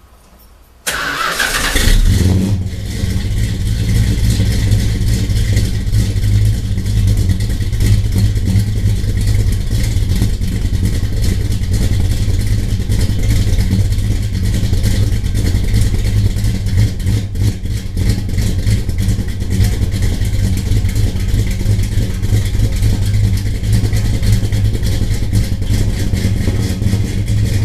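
Dodge Super Bee's 440 V8 starting about a second in, catching quickly and then running at a steady idle.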